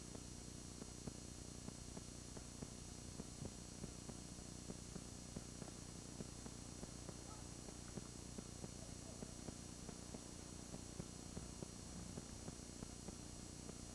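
Steady low electrical hum and hiss with frequent faint, irregular clicks and crackles: the noise floor of an old analogue recording, with no other sound standing out.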